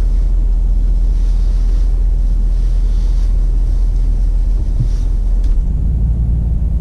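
Steady low rumble of a 4th-generation Toyota 4Runner's 4.7-litre V8 and drivetrain while driving on a rough trail, with a wind-like rushing over it and a light knock about five seconds in.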